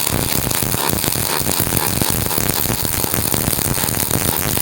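A robotic welder's arc crackling steadily as it lays a weld: a dense, even stream of rapid crackles.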